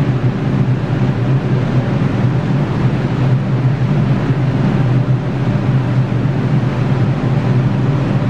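New York City subway train standing at the platform with its doors closed, giving a steady loud hum and rumble from its onboard equipment.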